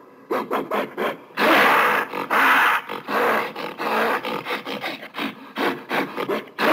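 Gorilla vocalizing: quick, rasping grunts at about four or five a second, broken about a second and a half in by three or four longer, loud, harsh calls, then the quick grunts again.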